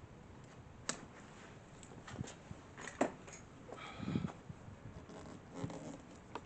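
Scattered clicks, taps and rustles of hand work on a bicycle's shift cable and bar tape, with the sharpest clicks about one and three seconds in. A short pitched squeak comes about four seconds in.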